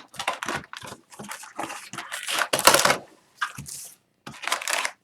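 Upper Deck Extended Series hockey card packs being torn open and handled, the foil wrappers crinkling and tearing with a rapid run of short crackles and clicks. The loudest tearing rush comes about two and a half seconds in.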